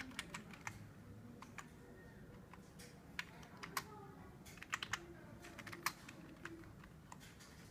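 Computer keyboard being typed on: irregular keystroke clicks in short uneven runs as a terminal command is entered.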